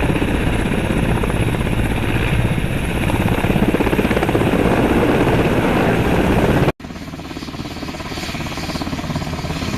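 Helicopter sound effect, rotor and engine running loudly. It cuts off abruptly about two-thirds of the way through, and a quieter stretch of similar noise follows.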